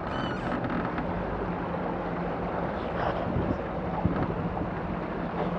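Wind buffeting the microphone and water lapping around a capsized catamaran, over a steady low hum that fits a nearby motorboat engine. A single sharp knock about four seconds in.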